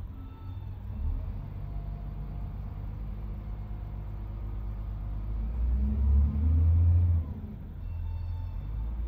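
SDLG wheel loader's diesel engine running under load as the machine drives up with a full bucket of sand and lifts it over a dump truck. The engine revs up and is loudest for about a second and a half a little past halfway, then drops back to a steady run.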